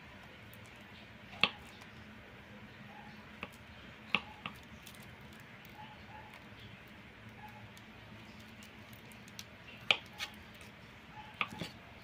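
Kitchen knife slicing through soft saba bananas and knocking against a wooden chopping board: about seven sharp clicks a few seconds apart, some in quick pairs, over a faint steady hum.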